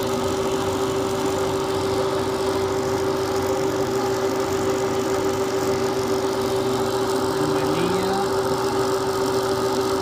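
Milling machine spindle running with a constant steady hum while drilling a tiny number 76 hole through a sensitive drill chuck.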